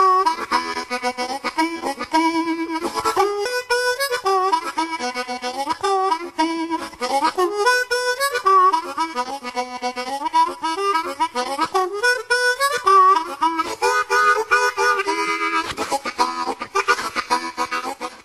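Instrumental music led by a harmonica, with bending notes and chords.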